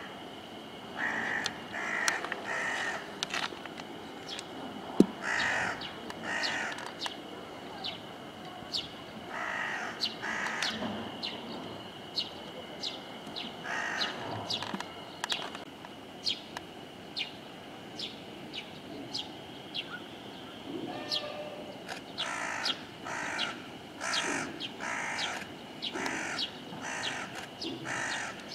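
Crows cawing in repeated runs of three or four caws, with short high chirps in between and a faint steady high tone underneath. A single sharp knock about five seconds in.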